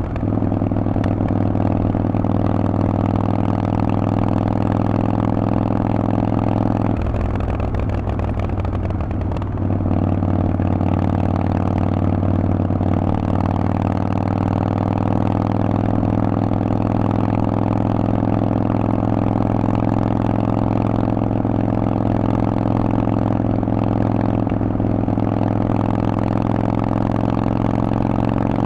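Harley-Davidson Forty-Eight's 1200 cc air-cooled V-twin running through Vance & Hines aftermarket exhaust pipes at a steady engine speed. About seven seconds in, the note breaks up for a couple of seconds, then settles back to a steady pitch.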